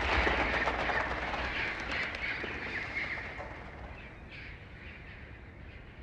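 A dense, rapid chatter of clicks and chirps from a film soundtrack, fading steadily.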